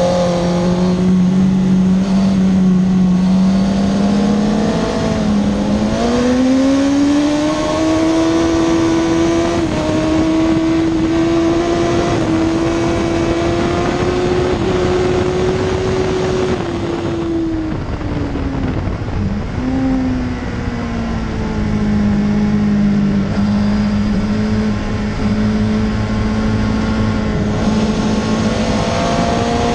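Suzuki GSX-R 1000 K2's inline-four engine heard onboard at racing speed under heavy wind rush. The engine note climbs about six seconds in and holds high near the top of the rev range along the straight, drops and wavers as the bike slows for a corner about two-thirds through, then rises again near the end as it accelerates.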